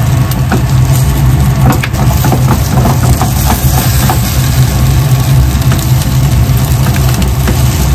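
A metal spatula and a slotted turner scraping and tapping in a frying pan as a pancake is cut in half, giving scattered short clicks. Under them runs a loud, steady low hum.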